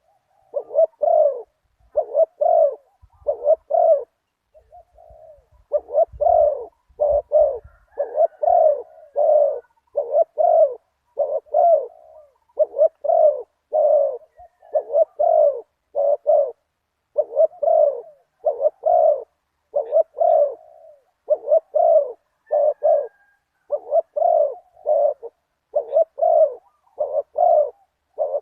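Spotted dove cooing over and over, in short phrases of two to four low coos separated by brief pauses.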